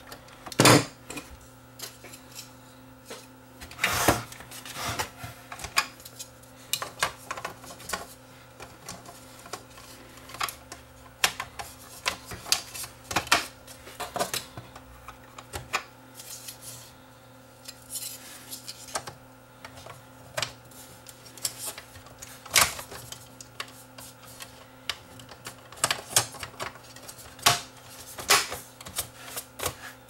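Irregular clicks, taps and knocks of plastic and metal parts being handled and fitted while a cassette deck's front panel and chassis are reassembled, a few louder knocks standing out. A faint steady hum runs underneath.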